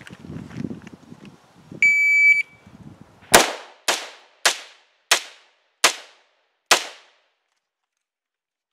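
An electronic shot timer gives one half-second start beep. About a second later an AR-15 rifle fires six semi-automatic shots, a little over half a second apart at first, with the gaps widening slightly toward the last shot.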